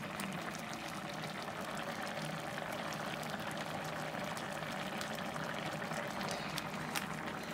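Mutton curry simmering in a pot on an electric hob: a steady bubbling with many small pops.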